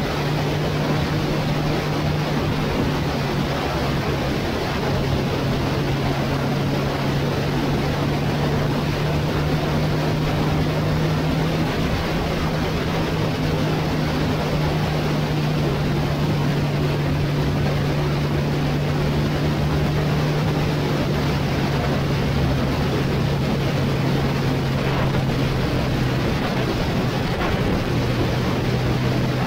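Motorcycle engine running at a steady cruise under heavy wind and road noise. Its note steps up slightly about five seconds in and dips a little near the end.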